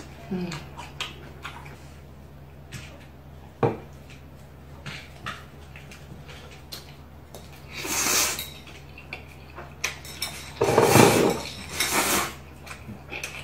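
Close-up eating sounds: a fork clicking and tapping against a plate, with one sharp knock, then loud slurps of spicy fire noodles about 8 s in and again near the end.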